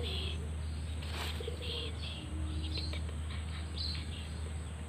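Outdoor ambience with short bird chirps coming and going over a steady low hum.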